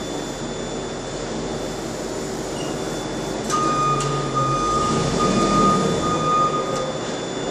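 Steady hum of dock and warehouse machinery. About halfway through come a couple of sharp clacks, then a high-pitched electronic beep in long pulses for about three seconds, typical of a forklift's travel or reversing alarm.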